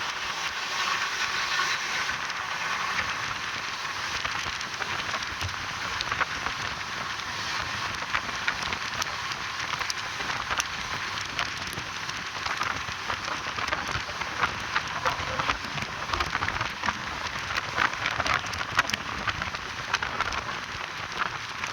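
Steady rushing noise of a moving train heard from inside the coach, with scattered sharp clicks that come more often in the second half.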